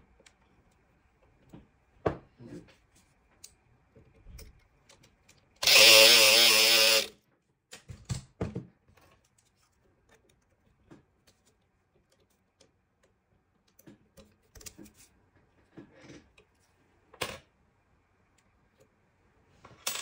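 Lock picks working a euro cylinder lock: faint metal clicks and scrapes from a tension wrench and pick in the keyway. About six seconds in, a pick gun buzzes in the lock for about a second and a half, the loudest sound, followed by more scattered clicks, with a sharper click near the end.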